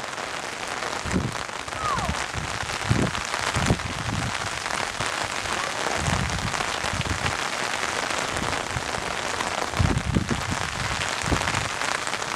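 Steady hiss of rain falling on a flooded yard, with a few irregular low thumps.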